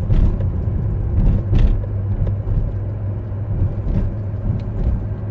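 A car's engine and road noise heard from inside the cabin while driving, a steady low rumble.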